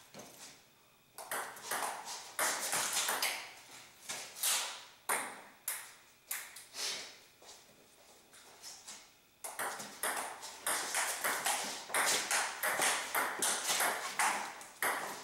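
Table tennis ball clicking off paddles and the table in two rallies, with a short pause between them; the second rally's strokes come quicker.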